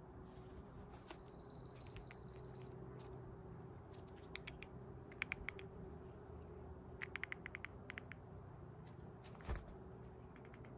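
Two quick runs of faint sharp clicks and one louder knock near the end: an animal working at a hazelnut shell. A high buzz lasting under two seconds starts about a second in.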